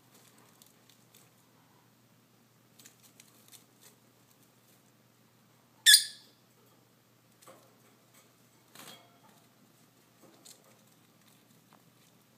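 Lovebird picking and chewing at the straw fibres of a preening toy: faint, scattered crackling rustles and beak clicks. About halfway through comes one short, sharp, high chirp, much louder than the rest.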